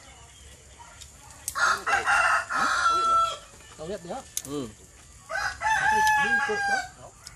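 Rooster crowing twice, about a second and a half in and again about five seconds in, each crow ending on a long held note, with short clucks between the crows.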